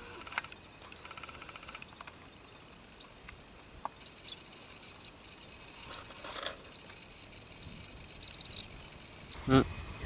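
Weaver birds calling sparsely, with a short buzzy chattering rattle about a second in and a quick run of high chirps near the end, over faint outdoor ambience. A person's voice breaks in just before the end.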